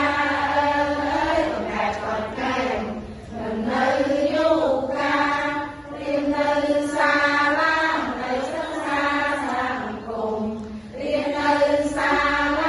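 A group of women singing a children's song together, in held phrases of a second or two with short breaks between them.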